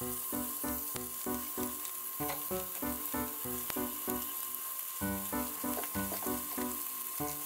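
Pieces of chicken thigh sizzling in hot sesame oil in a frying pan, a steady hiss, under background music with a regular beat of short notes.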